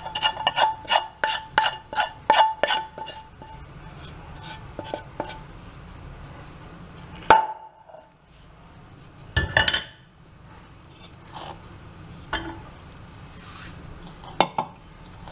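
A metal spoon knocks and scrapes against a pan as roasted flour is emptied from it: a quick run of ringing clinks, about four a second, for the first three seconds. Then come a few scattered knocks.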